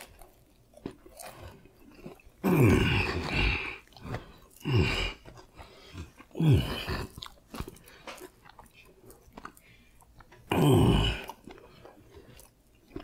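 A man chewing a mouthful of food, with four loud "mmm" moans of enjoyment, each falling in pitch, between faint chewing sounds.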